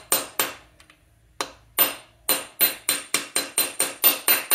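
Hammer tapping a brass punch in a run of sharp metallic strikes, two near the start, a short pause, then about a dozen coming faster, around four a second, each with a brief ring. It is drifting a Triumph Bonneville T140V rocker shaft with a new O-ring back into place.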